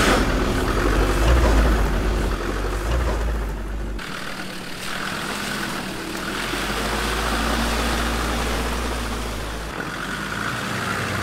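Land Rover Discovery 2's Td5 five-cylinder turbodiesel engine running at low speed off-road, with water and mud splashing at the tyres. The sound changes abruptly about four seconds in and again near the end.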